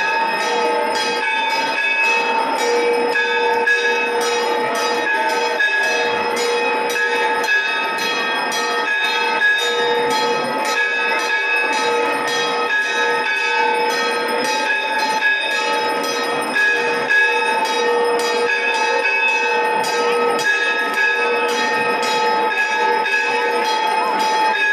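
Temple bells ringing without pause, struck over and over in quick succession, their tones sounding on steadily.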